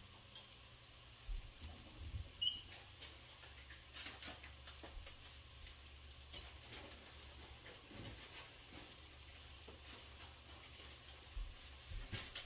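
Faint, irregular crackling and ticking of washed rice sautéing in a pot, over a faint low hum.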